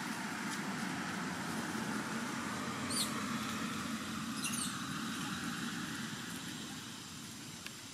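Steady outdoor background noise, like distant traffic or wind, with two short high squeaks about three and four and a half seconds in.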